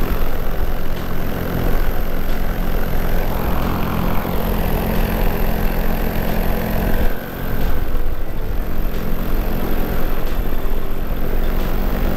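Paramotor engine driving its repaired carbon-fibre propeller, running steadily in flight, with air rushing past the microphone. The level dips briefly about seven seconds in.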